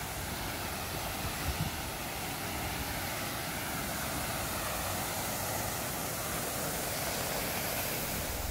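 Tall fountain jet spraying and splashing into its pool: a steady, even rushing of falling water.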